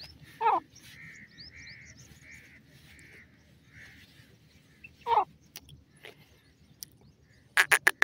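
Grey francolin calling: two loud, short calls that slide downward in pitch, about half a second in and again about five seconds in, with a row of faint soft notes between them. Near the end a fast run of loud, sharp repeated notes starts.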